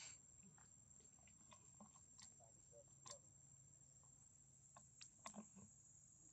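Near silence: quiet outdoor ambience with a faint steady high-pitched hum and a few faint, scattered clicks.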